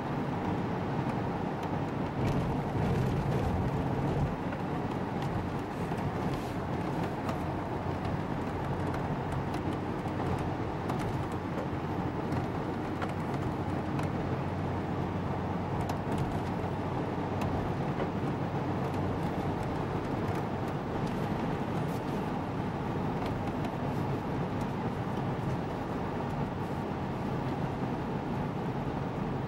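Steady cabin noise of a car driving at road speed along a highway, an even drone of engine and road noise.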